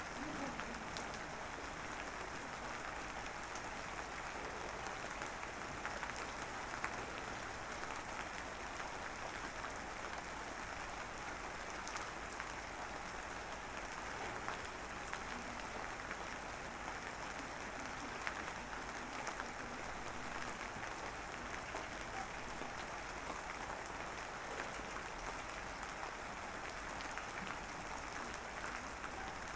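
Light drizzle falling, a steady soft hiss of fine raindrops pattering with scattered tiny ticks of individual drops.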